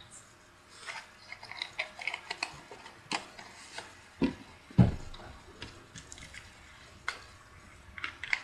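Handling noises of a drink carton and a plastic water bottle at a table: scattered clicks and rustles, with two dull knocks, the loudest sounds, about four and a half seconds in as something is set down, and a cluster of clicks near the end.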